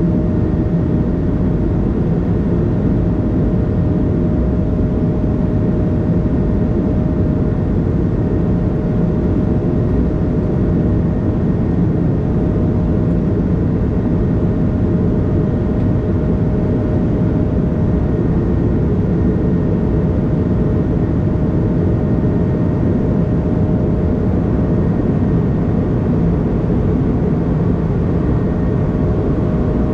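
Steady cabin roar of an Airbus A220 in flight, the noise of its Pratt & Whitney PW1500G geared turbofans and the airflow heard from inside the cabin over the wing. A faint steady whine runs under the roar and fades about halfway through.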